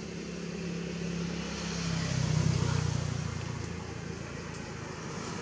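A motor vehicle passing by: a low engine hum that grows louder to a peak about halfway, drops in pitch as it goes past, then fades.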